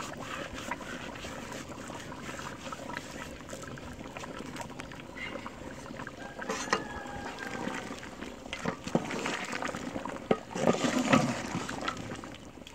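A ladle stirring chicken gravy in a large aluminium cooking pot: liquid sloshing, with a sharp knock of the ladle against the pot, loudest in the last couple of seconds.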